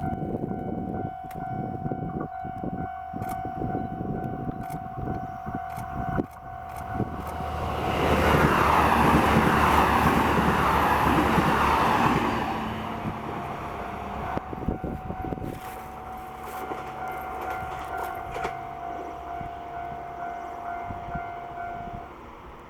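Railway level-crossing warning bell ringing steadily as the Resort Shirakami Aoike set, an HB-E300 series hybrid railcar, passes. The train's rush of wheel and running noise builds from about eight seconds in, is loudest for about four seconds, then fades. The crossing bell stops near the end.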